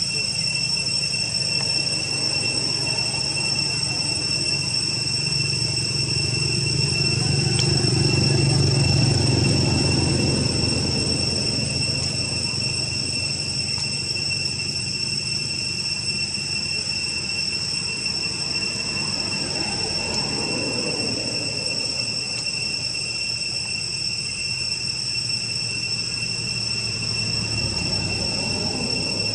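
Insects droning steadily with a high, even hum that holds throughout. A low rumble swells and fades about a third of the way in.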